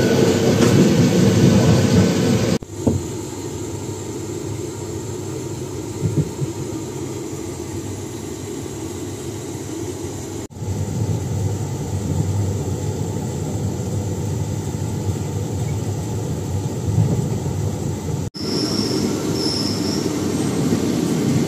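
Malabar Express passenger train running along the rails: a steady low rumble, broken by three abrupt cuts, with two short high squeals near the end.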